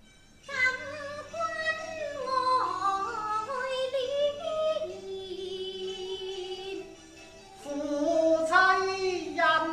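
Cantonese opera singing by a female lead (huadan): a high woman's voice in gliding, ornamented phrases, coming in about half a second in and rising louder for a new phrase near the end.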